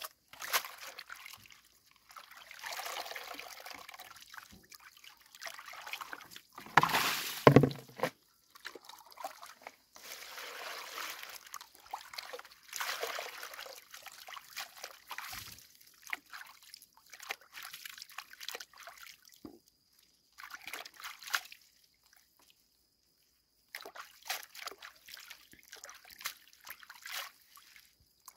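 Hands swishing and rinsing leafy greens in a plastic basin of water, in irregular bouts of sloshing and trickling, with one louder slosh about seven seconds in.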